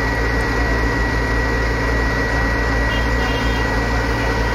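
Engine of a heavy recovery crane running steadily at close range, with a thin steady high tone over it.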